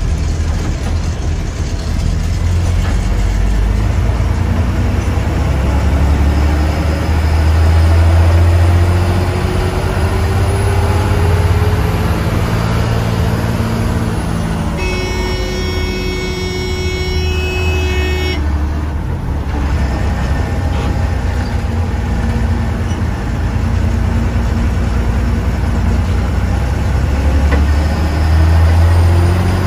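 KSRTC bus's diesel engine running with a steady low drone, its pitch climbing slowly a couple of times as it pulls. About halfway through, a vehicle horn sounds for about three and a half seconds as a chord of several steady tones.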